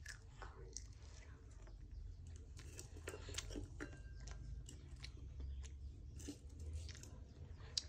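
Faint chewing with small crunches and clicks, a child eating apple.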